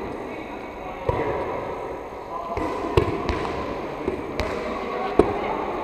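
A soft rubber ball struck again and again during volleyball setting practice in a large sports hall: about five short, sharp knocks, some a fraction of a second apart, as it is pushed off fingertips and bounces on the floor.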